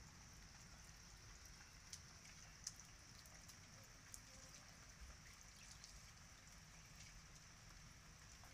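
Faint, steady patter of rain falling on a wet concrete terrace and its puddles, with a few sharper drop ticks, two of them about two and two and a half seconds in.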